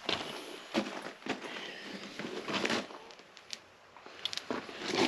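Scattered light knocks, clicks and rustling from hands handling tools and parts, at irregular moments with no steady rhythm.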